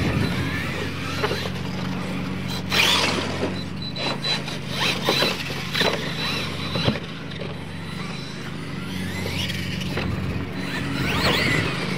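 Radio-controlled monster trucks racing on a dirt track: a thin steady motor whine and short squealing revs as the trucks accelerate, turn and land, over a steady low hum.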